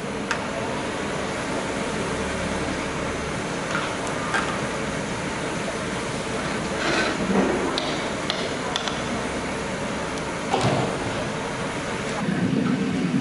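Chopped okra deep-frying in a large iron kadai of hot oil: a loud, steady sizzle of bubbling oil. A metal skimmer knocks and scrapes against the pan now and then.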